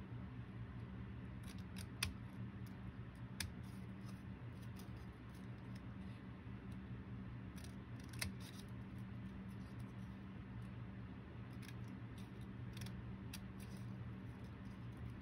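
Scissors snipping a row of slits into a folded paper index card: irregular short snips, with a few sharper ones about two, three and a half and eight seconds in.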